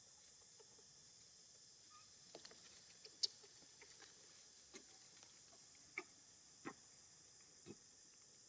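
Quiet ambience: a steady high hiss with scattered faint clicks and taps, one sharper click about three seconds in.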